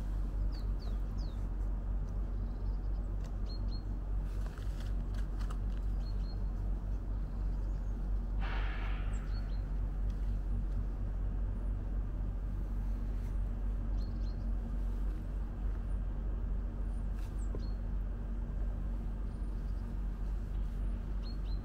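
Small birds giving short, high chirps now and then over a steady low rumble. About eight and a half seconds in there is a brief rush of noise lasting about a second.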